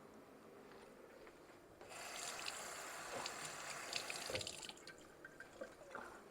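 Kitchen tap running into a sink for a couple of seconds, starting about two seconds in and stopping about halfway through, with small knocks as vegetables are rinsed.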